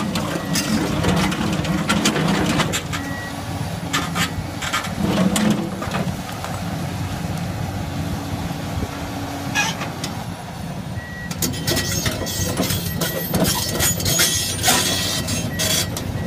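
Komatsu PC450 hydraulic excavator running under load while its rock wheel cutter grinds into stony ground, with stones clattering and cracking against it. A beeping alarm sounds briefly about three seconds in and repeats steadily through the second half.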